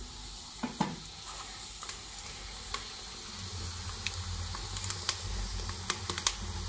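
Wood fire in a chulha crackling with scattered sharp pops over a steady hiss from the lidded karahi cooking on it. A couple of light knocks under a second in as the wooden spoon is laid on the pot's lid.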